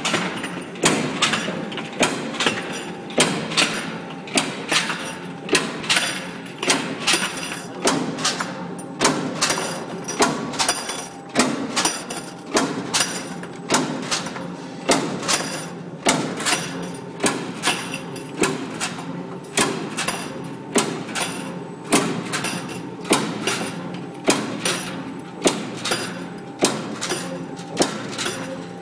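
Power press stamping metal strip fed through a 200 mm straightener and servo feeder: a clanking press stroke about once a second, evenly repeated, over the steady hum of the running line.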